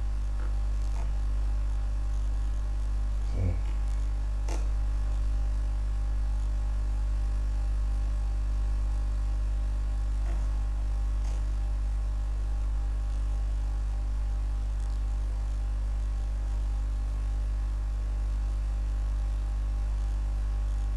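Steady electrical mains hum, a low drone with a stack of overtones, picked up by the recording setup. A few faint clicks come through it.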